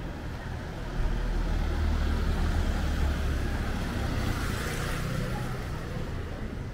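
A motor vehicle passing close by on the street: a low engine rumble that comes up suddenly about a second in, with tyre and road hiss growing toward the middle, then easing off.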